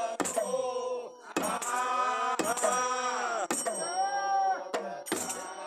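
A group of men singing a Kumaoni hill Holi song together, with a hand-beaten drum struck about once a second.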